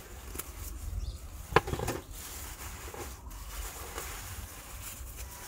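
Light handling noise as a succulent's packaging is unwrapped, with one sharp click about a second and a half in, over a low rumble.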